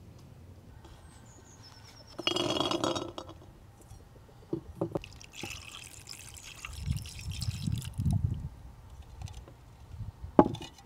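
Water poured from a clay jug into a ceramic bowl already holding water. There is a loud splashing gush about two seconds in, then drips and small splashes, and a single sharp clink near the end.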